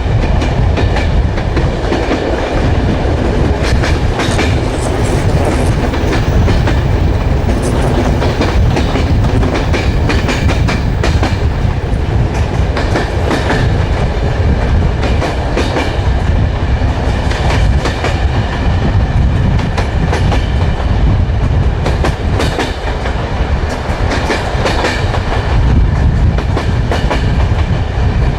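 Train wheels rolling steadily over the rails: a continuous low rumble with scattered clicks as the wheels cross rail joints.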